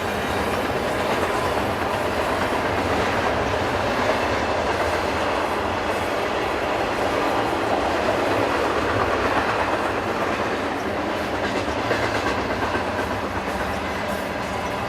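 BNSF freight train rolling past, a steady rumble of steel wheels on the rails.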